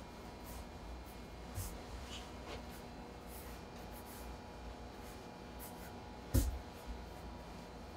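Hands rolling potato gnocchi dough into long ropes on a wooden table: soft, repeated brushing and rubbing strokes, with a dull thump about six seconds in.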